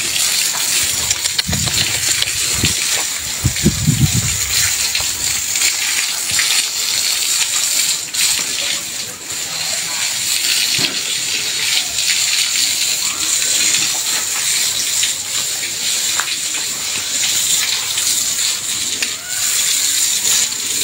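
Water from a hose spraying onto a red Brahman cow's wet coat, a steady hiss throughout.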